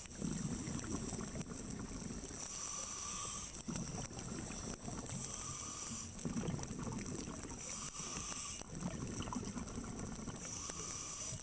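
Scuba diver breathing through a regulator underwater: a hiss on each inhale alternating with a low bubbling rumble on each exhale, about four breaths at an even pace of one every two and a half to three seconds.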